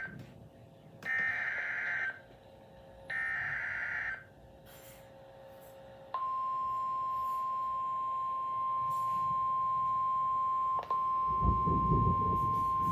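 Emergency Alert System SAME header: two roughly one-second bursts of buzzing data tones, about a second and about three seconds in. About six seconds in, the steady single-pitch National Weather Service attention tone starts and holds, with a low rumble underneath near the end.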